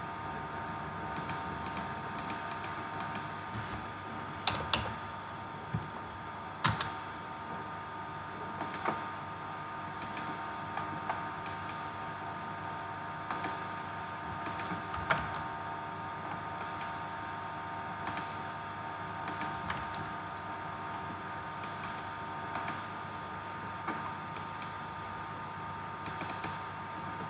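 Computer mouse and keyboard clicks, irregular, now single, now in quick runs of two to four, over a steady background hum.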